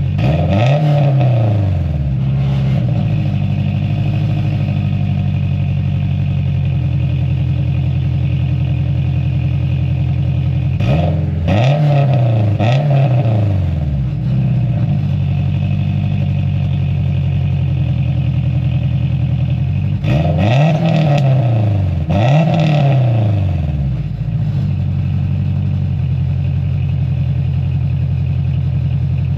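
Turbocharged Honda S2000 four-cylinder engine idling through a cheap single-exit aftermarket exhaust, blipped in short revs that rise and fall: once near the start, then twice in quick succession about a third of the way in, and twice more past the middle.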